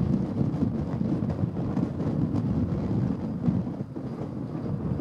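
Wind buffeting the microphone over the steady low rumble of a twin-engine jet airliner's engines on the runway.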